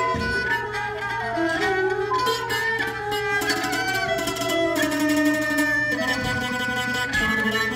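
Thai jakhe (crocodile floor zither) plucked in quick, repeated notes, playing a melody in duet with a bowed Thai two-string fiddle that slides between its sustained notes.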